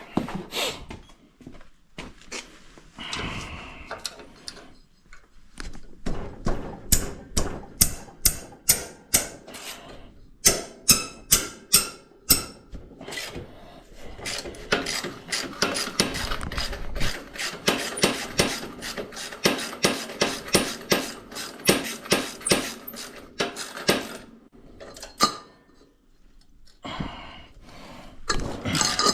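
Socket ratchet clicking in long quick runs as bolts are worked loose, with clanks of tools and metal between the runs.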